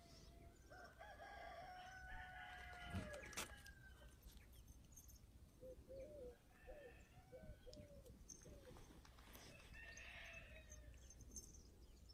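Rooster crowing faintly, one long call of about three seconds that drops in pitch at its end, followed by hens clucking in short repeated calls.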